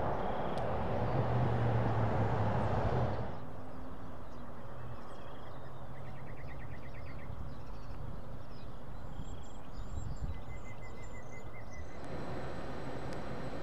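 Outdoor ambience: a steady rushing noise that drops away sharply about three seconds in. A quieter background follows, with small birds chirping and giving a couple of fast trills. A similar rushing noise returns near the end.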